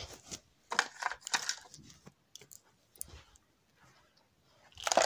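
Small hard objects clattering and knocking as things are handled and moved about, in a few separate bursts, the loudest near the end.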